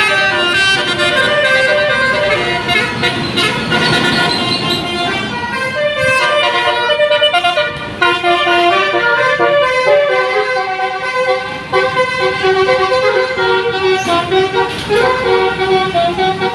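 Basuri telolet horn, a multi-tone musical vehicle horn, playing a melody of held notes that change pitch every half second or so, with brief breaks about halfway through.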